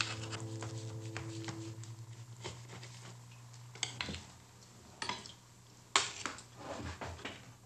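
Scattered clinks and knocks of plates and cutlery as a meal is served at the table, about half a dozen sharp clinks spaced a second or so apart. A held music chord fades out about two seconds in.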